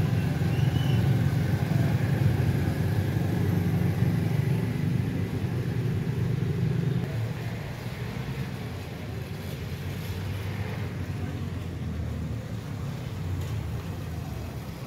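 Motorcycle traffic passing on a wet, flooded street, the engines' rumble loudest for about the first half, then dropping to a lower, steady traffic rumble.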